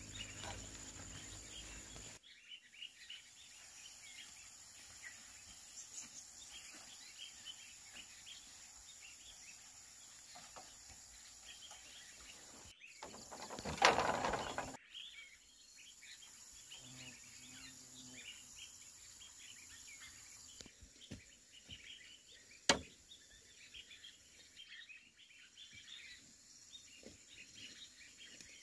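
Faint rural outdoor ambience with small birds chirping on and off. There is a brief louder noisy burst about halfway through and a single sharp knock about two-thirds of the way in.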